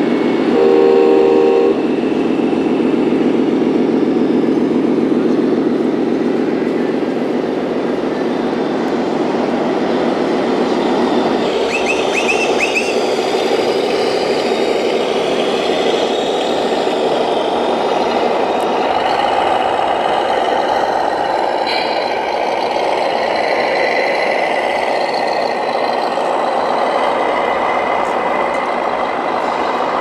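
Radio-controlled model semi-trucks' sound modules playing a diesel engine running steadily through their small loudspeakers. A horn blast of about a second sounds near the start.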